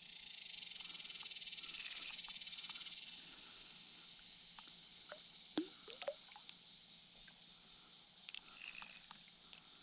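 Steady, high-pitched drone of insects, a little louder for the first three seconds, with a few faint clicks midway.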